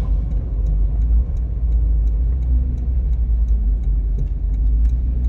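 Supercharged 5.7-litre Toyota Tundra V8 swapped into a 4Runner, running under way with a deep steady rumble heard from inside the cabin.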